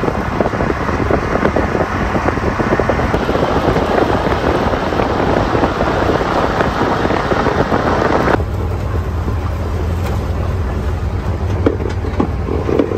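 Side-by-side utility vehicle driving on rough ground: its engine runs under a dense rattle and wind noise. About two-thirds of the way through, the sound drops abruptly to a steadier, lower engine drone.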